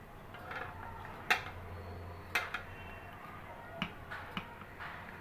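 Hot soybean oil in a karai popping and spitting as wet cabbage-wrapped fish parcels are laid in. There are a few sharp pops, the loudest about a second in and again about two seconds in, and smaller ones later.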